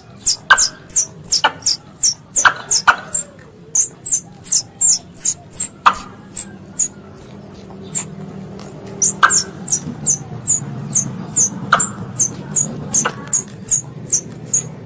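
Squirrel lure call: a rapid series of short, high-pitched, falling chirps, about three a second, with sharp clicks among them and a brief pause about eight seconds in.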